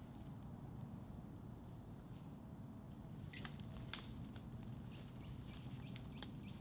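Quiet woodland ambience over a steady low rumble: two sharp clicks a little past halfway, then a small bird chirping repeatedly near the end, short high falling notes a few times a second.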